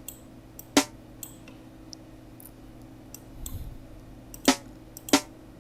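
Computer mouse clicking: a sharp single click about a second in and two more close together near the end, over a faint steady hum.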